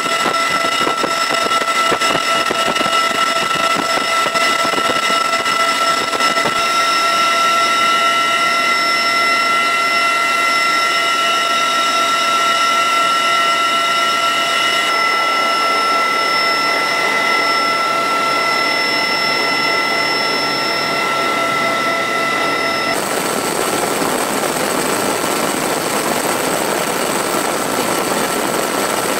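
Loud, steady cabin noise of an MH-53E Sea Dragon helicopter in flight: its three turboshaft engines and drive train give several steady high-pitched whines over a constant rushing roar. The mix shifts suddenly a few times, and in the last few seconds the whines fade back under a louder rush of wind and rotor wash at the open door.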